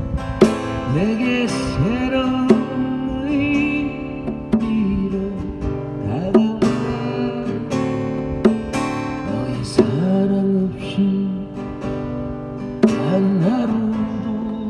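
Instrumental break of a slow ballad: acoustic guitar strumming under a lead melody line that slides up into its notes.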